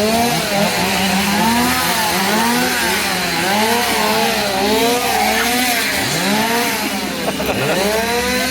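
Small petrol engine of a handheld power tool, revved up and down over and over in quick sweeps, about one every second or less.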